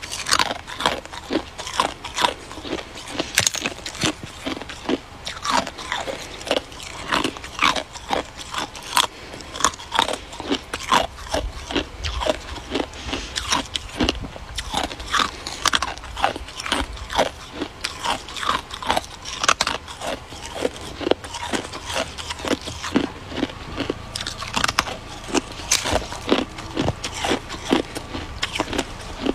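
Hard icicle ice being bitten and chewed: a continuous series of sharp crunches and cracks, a couple or so a second, as the ice breaks between the teeth.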